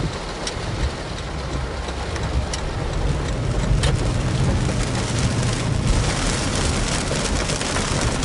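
Heavy rain falling on the roof and windshield of a moving car, heard from inside the cabin, with scattered sharp drop hits over the low rumble of the car on the road. The rain grows denser and louder about six seconds in.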